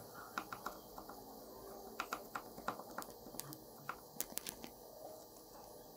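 Faint, irregular clicks and taps of a small knife's tip piercing raw green plantain slices and touching the wooden cutting board beneath.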